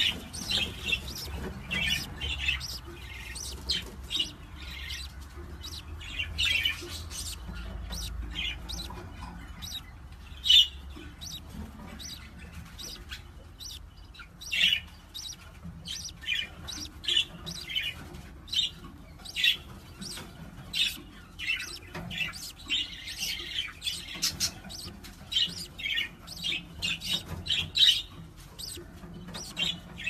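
Parrot chirping, with a steady stream of short high calls in quick succession over a faint low rumble.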